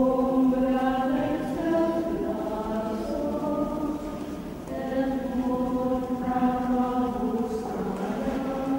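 Nuns singing a slow processional hymn in unison, holding long notes, with a short break for breath about four and a half seconds in.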